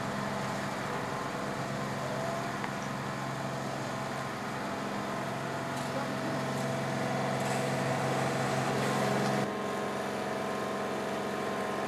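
Diesel engine of heavy lifting machinery running steadily at a constant speed, a low even hum. Its lowest tones drop out abruptly about three-quarters of the way through, leaving a higher steady hum.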